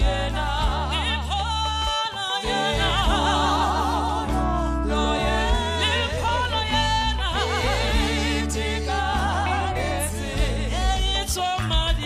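Gospel music: voices singing a wavering, vibrato-rich melody over a steady low accompaniment.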